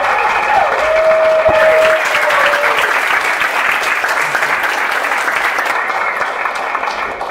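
A crowd applauds with sustained clapping, and a few voices cheer with drawn-out calls in the first two seconds. The applause tapers off near the end.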